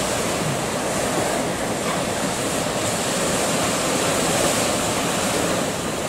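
Steady rush of sea surf, waves washing on the shore without a break.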